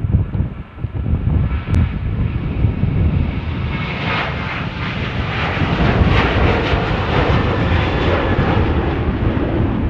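Ryanair Boeing 737-800's CFM56-7B jet engines at takeoff thrust as it rolls down the runway and lifts off. The roar grows louder and brighter over the first few seconds over a heavy low rumble, and eases slightly near the end.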